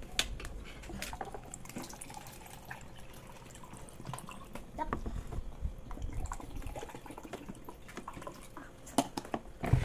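Water being poured and dripping into plastic drinking cups, with a few sharp knocks of cups or utensils on the table near the end.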